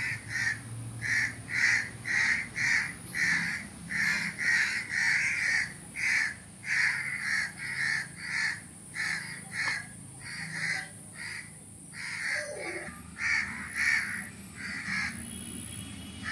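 Dogo Argentino panting, quick steady breaths about twice a second that stop shortly before the end.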